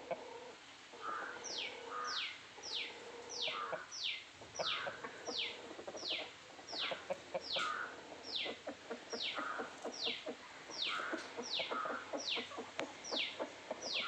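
Chickens clucking, with a bird's high, falling peep repeated about twice a second over them, starting a second or so in.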